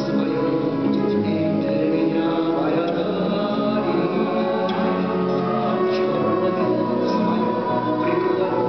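A small vocal group of men and a woman singing together to two acoustic guitars, with long held notes.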